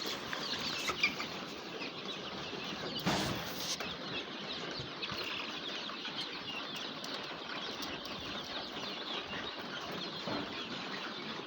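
A flock of young chickens cheeping continuously, many short high peeps overlapping, with a short louder flurry about three seconds in.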